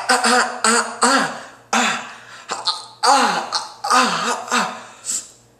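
A man letting out a rapid series of about a dozen short, strained yells, as if in pain.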